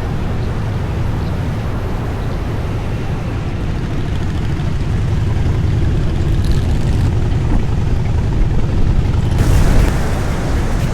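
Harley-Davidson motorcycle on the move: a steady low rumble buried in heavy wind noise on the microphone, growing slightly, with a louder rush of wind about nine seconds in.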